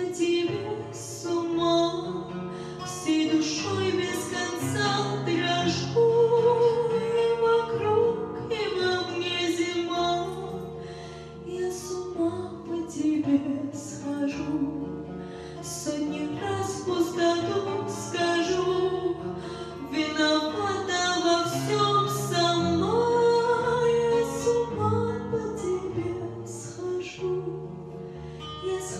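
Live female vocal singing a Russian-language ballad into a microphone, with held, gliding notes, over acoustic guitar accompaniment.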